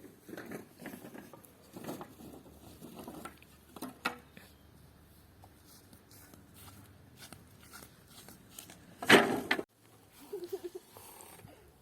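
Wooden boards for a pergola being handled and laid out on the ground: irregular knocks and scrapes of wood, with one louder clatter lasting about half a second, about nine seconds in.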